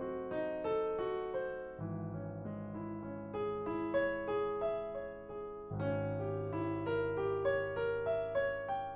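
Background piano music: a calm melody of single notes over held low bass notes, with a new bass chord about two seconds in and again near six seconds.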